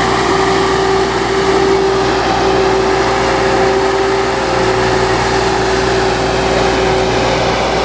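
Heavy construction machine's diesel engine running steadily, with a steady whine over it.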